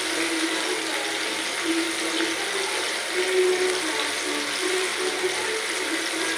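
Pieces of battered chicken deep-frying in hot oil: a steady, even sizzle.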